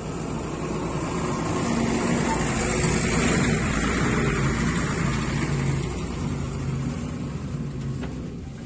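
Ashok Leyland lorry's diesel engine running as the lorry crawls over rough, dug-up soil past close by, growing louder a few seconds in as it passes and easing off as it moves away.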